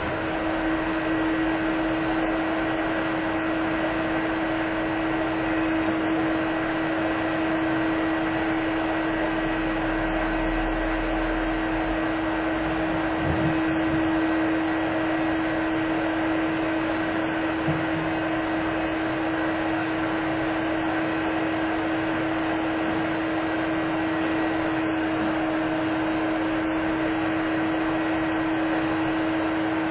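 Vacuum cleaner running steadily: a constant motor hum under a rush of air. It does not change in pitch or level.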